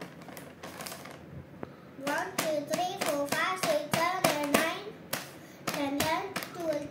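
A child chanting a sing-song counting rhyme, starting about two seconds in, while his hand taps crinkly Lay's chip packets in turn. The taps are sharp clicks in time with the chant.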